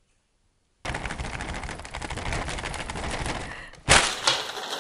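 Brown paper bag being handled and opened: a dense crackling rustle of stiff paper for about three seconds, with a louder crackle near the end.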